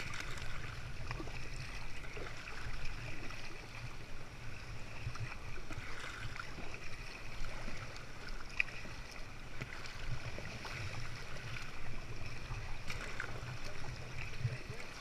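Sea water sloshing and splashing around a kayak as it moves on the swell, a steady watery wash with small splashes scattered through it.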